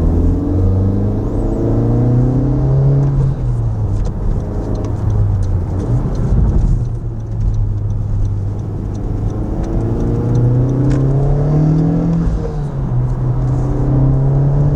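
Inside the cabin of a 2018 Honda Civic Type R fitted with a Mishimoto cold air intake, its turbocharged 2.0-litre four-cylinder engine pulls away gently. The engine note rises in pitch and drops back at each upshift, a few times over. The note is a little lower and throatier at low speed.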